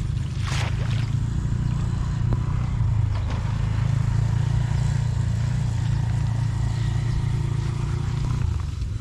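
Steady low hum of a small engine running, easing slightly near the end.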